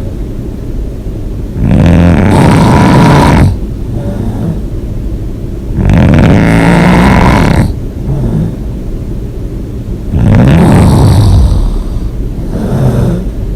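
A person snoring loudly, with three loud snores about four seconds apart and quieter rumbling breaths between them.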